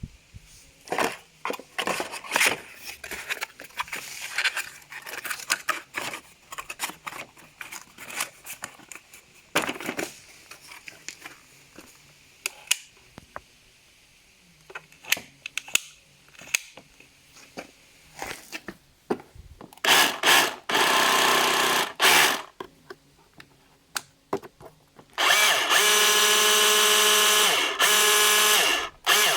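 Bosch GBH 18V-26 F cordless rotary hammer running unloaded: a short run of about two seconds, then a steady run of about four seconds near the end with a clear pitched whine. Before that, scattered clicks and knocks of the tool being handled.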